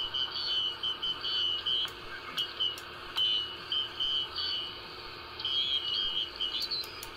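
Magnum Omegaforce S45 radio receiving in upper sideband: a steady hiss with broken, high-pitched tones coming and going. A few sharp clicks sound near the end as a front-panel button is pressed.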